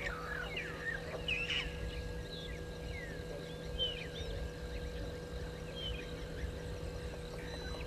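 Several wild birds calling: scattered short chirps and quick rising and falling whistles, over a steady low electrical hum and a low rumble.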